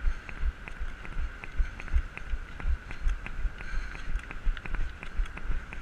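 Running footfalls in an even rhythm, about two and a half thumps a second, each with a light click, over a faint steady high tone.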